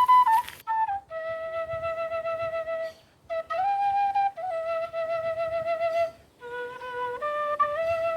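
Quena, the Andean end-blown notched flute, playing a slow solo melody of held notes, some slid into, with short breaks for breath about three and six seconds in.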